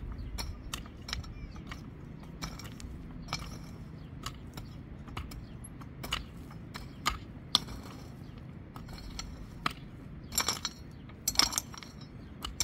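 Pickaxe and shovel working stony soil: irregular chops and scrapes of steel in dirt with metallic clinks, the strikes louder about ten to eleven and a half seconds in.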